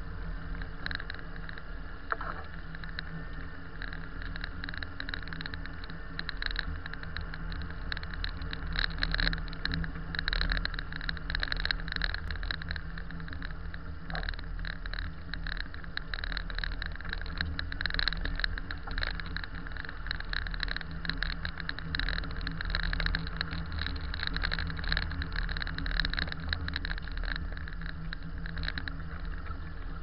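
Car driving slowly over snow-packed streets, heard from inside the cabin: a steady low engine hum under rough, fluttering road noise from the tyres on snow.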